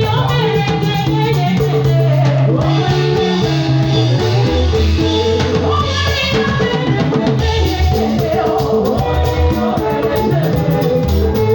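Live band music: singing over a drum kit, guitar and a steady bass line.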